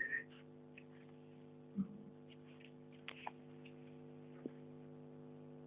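Steady low electrical hum, with a soft thump about two seconds in and a few faint clicks.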